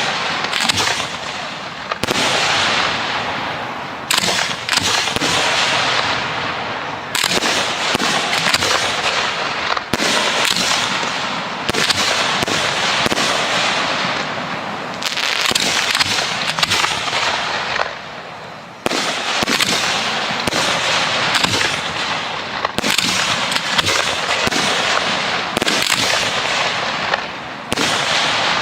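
Professional display fireworks going off in quick succession: a dense, continuous run of bangs and crackling shell bursts. A fresh volley starts suddenly every few seconds, each one fading off before the next.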